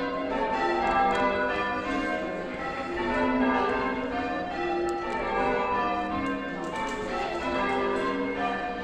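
Church bells being rung in changes: several bells struck one after another in a continuous, overlapping sequence, each note ringing on under the next.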